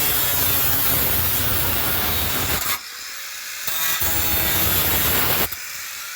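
Angle grinder working steel in two long passes, the wheel lifted off the metal for about a second between them and again near the end.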